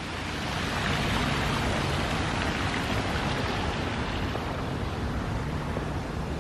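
Steady rush of creek water spilling over a low dam of concrete stepping stones.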